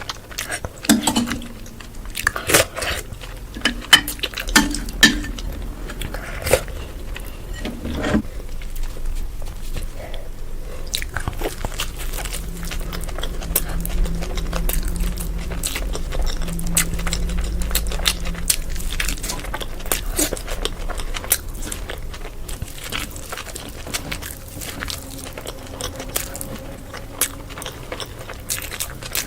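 Close-miked chewing and biting of food, with many short wet clicks and crunches. Sharper bites come every second or so in the first several seconds, followed by steadier chewing.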